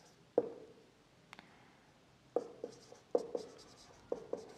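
Marker pen writing on a whiteboard: short separate strokes, one early, then after a pause of nearly two seconds a run of several more in quick succession.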